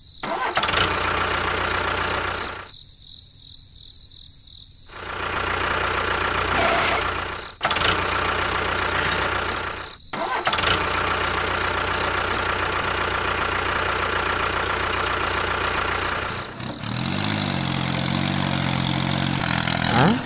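A small motor running with a dense buzzing noise. It drops away for a couple of seconds and cuts out briefly twice before running on steadily. Near the end the sound changes to a lower hum that rises in pitch and then holds.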